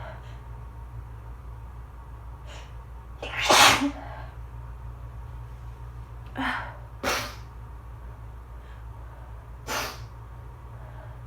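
A person sneezing several times in an allergy sneezing fit. The loudest sneeze comes about three and a half seconds in, two more come close together around six and a half to seven seconds, and a last one comes near the end.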